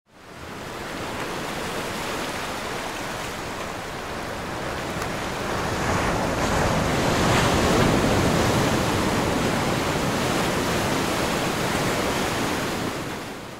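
Small sea waves breaking and washing up over a sandy beach: a steady surf wash that grows a little louder around the middle.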